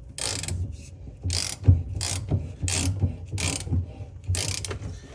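Ratchet wrench clicking in repeated short back-and-forth strokes, about six, as it turns a pipe plug socket to thread a 3/4-inch pipe plug in.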